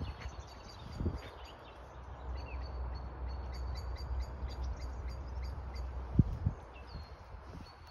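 Small songbirds chirping in short high notes, over a steady low rumble. Two sharp knocks come about six seconds in.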